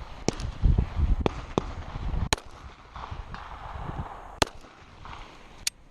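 A string of handgun shots at uneven intervals, each a sharp crack, some louder than others.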